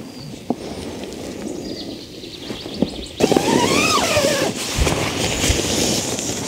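Outdoor ambience with a steady noisy background and faint short chirps. About halfway through, an animal call rises and then falls in pitch over about a second.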